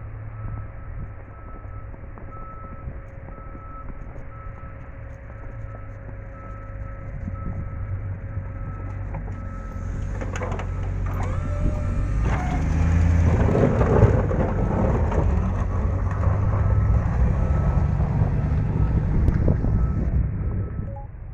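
Snow plow truck engine rumbling with a steady beeping over it. From about eight seconds in it grows louder into a rough, scraping rumble that peaks midway, then drops off near the end.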